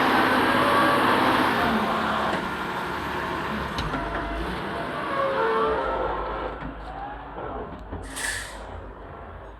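A construction loader running, its machine noise fading steadily. Short squealing tones come through it, and there is a brief sharp hiss of air near the end.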